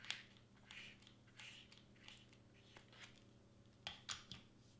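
Faint rustles and small clicks of cardstock and foam board being handled and pressed down during gluing, with a few sharper clicks about four seconds in.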